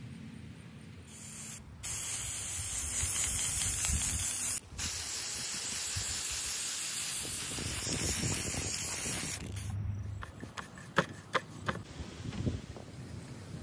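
Krylon ColorMaxx aerosol spray paint can spraying in a long, steady hiss with two brief breaks. Near the end come a handful of sharp clicks and knocks.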